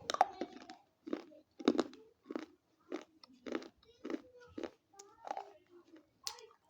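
A person biting into and chewing something crunchy held close to the microphone: a loud snapping bite at the start, then about ten crunchy chews at a steady pace, roughly one every half second.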